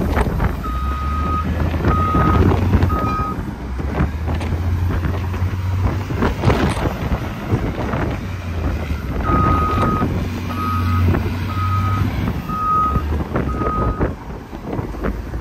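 A heavy truck's reversing alarm beeping about once a second in two runs: three beeps near the start and five more in the second half, over the low, steady running of a diesel engine.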